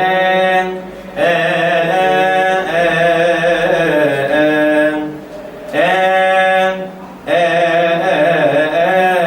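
Solo male cantor chanting a Coptic hymn of the Kiahk praises, with long held notes that bend and waver in melismas. The phrases are broken by short breaths about a second in, around five seconds in and around seven seconds in.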